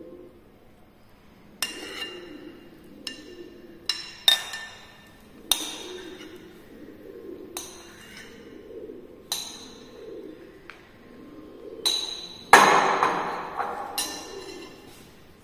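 Metal spoon clinking and scraping against a white ceramic bowl and plate as salad is spooned out: about a dozen sharp, ringing clinks at irregular intervals, with a louder, longer clatter near the end.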